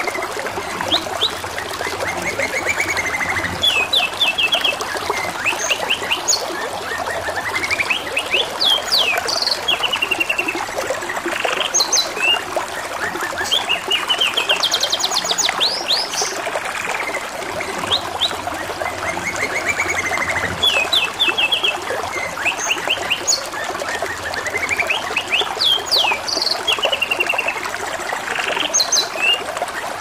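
Domestic canary singing, phrase after phrase of fast repeated trills and chirps, over a steady trickle of running water.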